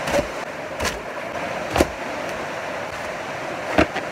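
Feet stamping down on a large inflated balloon that does not burst, four dull thuds spaced about a second apart, over a steady background rush.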